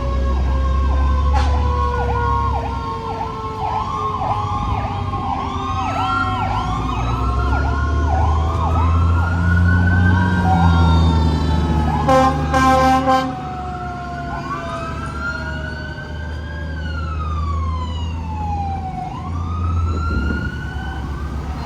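Sirens of a departing fire-truck convoy: rapid yelping sweeps and slower rising-and-falling wails over one long tone that slowly falls in pitch, with a short horn blast about twelve seconds in. Low engine rumble from the heavy trucks runs underneath.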